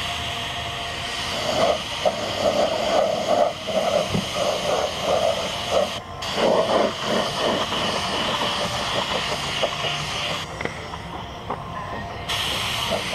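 Compressed-air paint spray gun hissing steadily as it sprays base coat, cutting off briefly about six seconds in and again for a couple of seconds near the end as the trigger is let go. A pulsing mid-pitched sound runs under the hiss for the first half.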